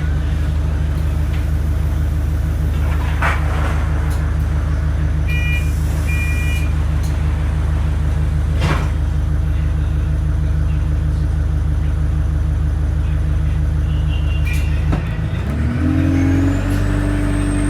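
Turbocharged vehicle engine idling steadily, then revving up about fifteen seconds in, with a high turbo whistle rising as it spools. Two short beeps sound about five and six seconds in.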